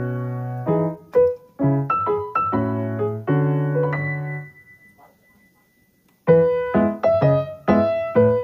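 Background piano music in quick phrases of decaying notes, stopping for about two seconds midway before starting again.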